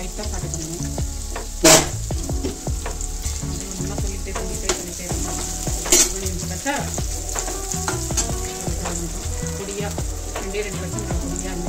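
Sliced onions frying in oil in a kadai, sizzling steadily, while a metal slotted spoon stirs them and scrapes and knocks against the pan. Sharp clanks of the spoon stand out just under two seconds in and again about six seconds in.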